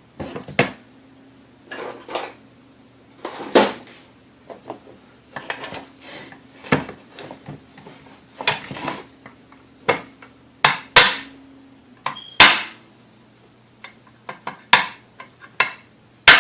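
Irregular sharp metal taps and knocks, a dozen or more strikes with a few much louder, from tools working a stuck pin out of a vintage Hamilton Beach Model D stand mixer; the pin is not coming free.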